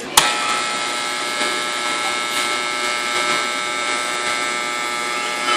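A steady mechanical whine over a hiss, holding one even level with several fixed tones; it starts with a sharp click just after the beginning and stops near the end.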